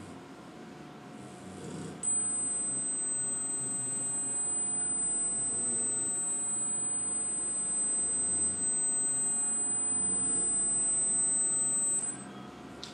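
A high-pitched, steady sine test tone, a 'dog whistle' frequency sweep step, played through computer speakers; it starts abruptly about two seconds in and stops about a second before the end.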